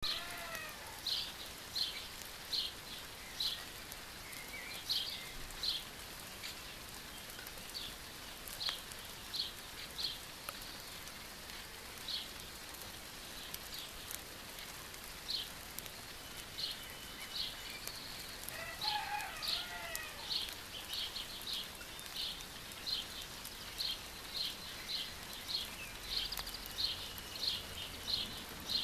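Steady light rain with a small bird chirping over it, repeating short high notes about once or twice a second. About two-thirds of the way in, a different, lower call with falling notes sounds briefly.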